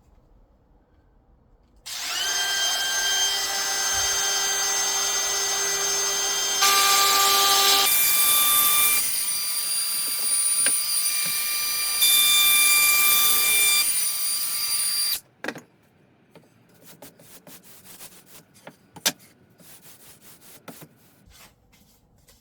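Router with a straight-cut bit trimming excess iron-on edging strip flush along an MDF edge: the motor starts about two seconds in and runs with a steady whine, getting louder in stretches as the bit cuts, then stops suddenly after about thirteen seconds. Light clicks and knocks of handling follow.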